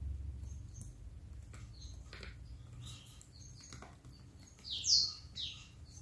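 A tame domestic canary giving scattered short chirps, the loudest two close together about five seconds in, over a low rumble that fades after about three seconds.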